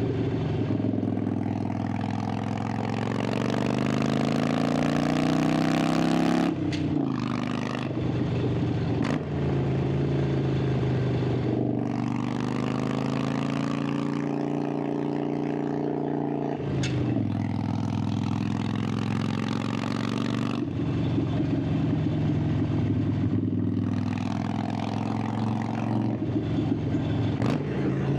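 Harley-Davidson Sportster 883's air-cooled V-twin exhaust under way, its note rising under throttle and dropping sharply three times, with wind rushing over the microphone.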